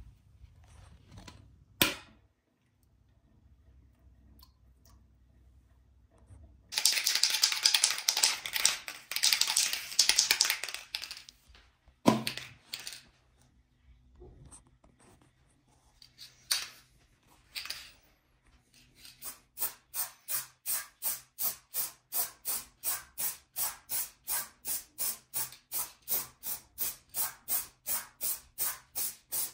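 Aerosol spray-paint can spraying in short, even hisses, about two a second, through the second half. Before that come a few seconds of loud dense rustling noise and some scattered clicks and taps.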